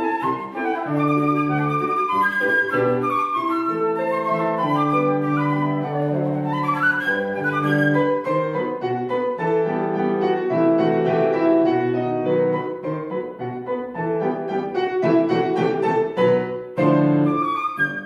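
Concert flute and Petrof grand piano playing a classical piece together; partway through the flute drops out and the piano plays on alone, and the flute comes back in near the end.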